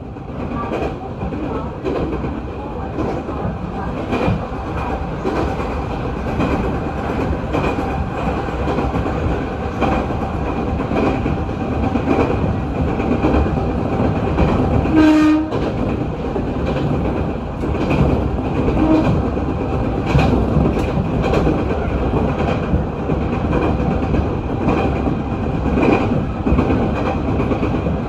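Jōshin Electric Railway electric train running along the track, its wheels clicking over rail joints. About halfway through, the train horn sounds one short blast.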